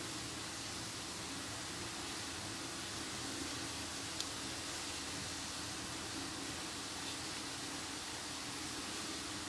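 Steady hiss of background room noise with a faint low hum, and one small click about four seconds in.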